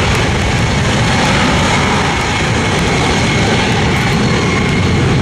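A cargo jet's engines at takeoff power during its takeoff roll: a loud, steady noise with a faint high whine.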